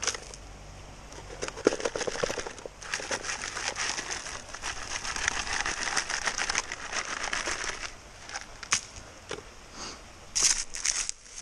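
Small hand shovel digging and scraping into gravelly dirt and stones, a dense run of crunching and scraping, with a few sharper knocks near the end.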